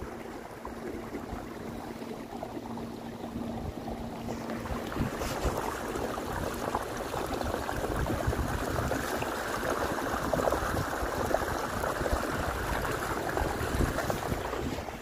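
Kayak driven by an electric trolling motor, with water rushing and splashing from its wake along the hull. A steady low hum lasts about five seconds, while the splashing grows louder and stays strong as the kayak gathers speed.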